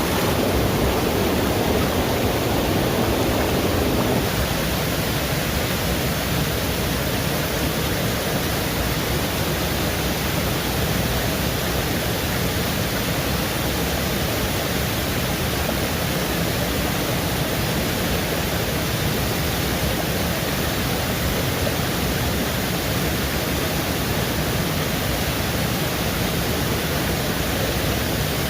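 Steady, even rushing noise, somewhat fuller and lower for about the first four seconds.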